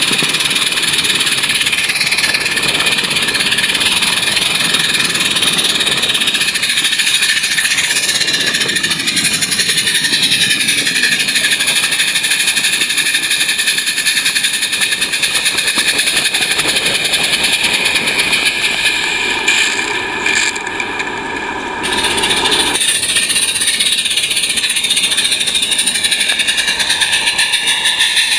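A 16 mm scale live-steam garden railway locomotive running, heard close up from a wagon it is coupled to: a steady hiss of steam with the running noise of wheels on the track. The sound changes about three-quarters of the way through, and fine regular clicks come in near the end.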